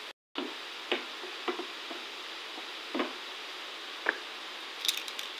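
Chicken pieces sizzling and bubbling in their juices in a frying pan, with about half a dozen sharp knocks of a utensil against the pan as they are stirred. The sound cuts out for a moment near the start.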